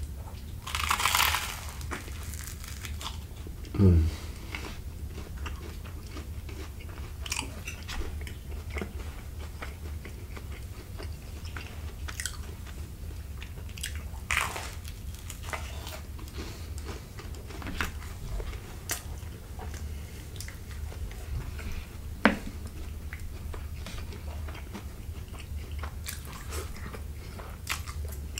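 Close-miked eating of toasted garlic cheese bread: a loud crunchy bite about a second in, then chewing with scattered small crunches and mouth clicks. A short low sound that drops in pitch comes about four seconds in, and a steady low hum runs underneath.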